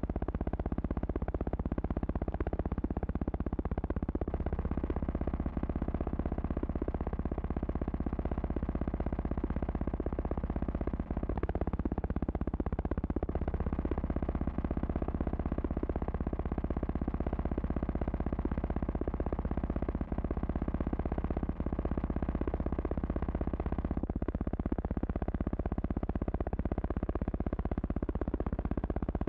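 Steady electrical hum and drone with a fine crackle and no change of note, the noise of an old film transfer rather than the guns or motorcycles on screen.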